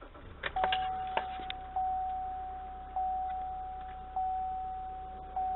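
Chevrolet Colorado's dashboard warning chime as the ignition is switched on: one tone struck again about every 1.2 s, each strike fading, after a few clicks near the start, over a low steady hum.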